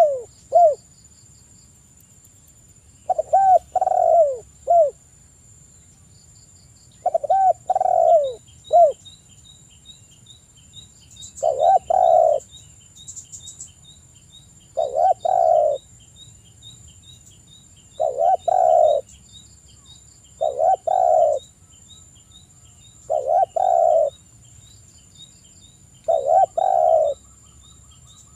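Spotted dove cooing: a phrase of a few low, rounded coos lasting about a second, repeated about every three seconds, eight times.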